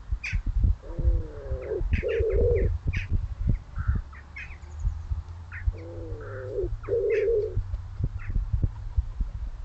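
A pigeon cooing: two low, soft phrases about five seconds apart, with short high chirps from small birds between them.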